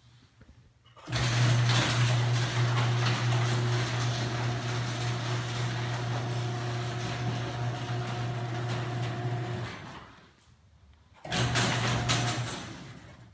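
Electric garage door opener motor running with a steady hum and the rattle of the door travelling for about eight and a half seconds, then stopping; after a short pause it starts again and runs for about a second before stopping.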